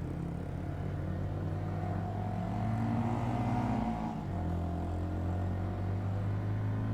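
Motorcycle engine running steadily while riding, its note dropping slightly about four seconds in and then holding.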